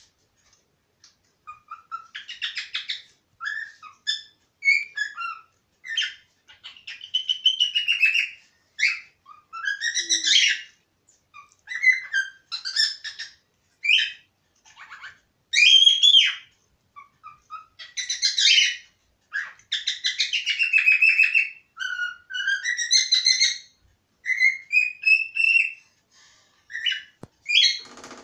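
Cockatiel whistling its song: a long run of chirps and whistled notes, many sliding up or down in pitch, in phrases with short pauses between them.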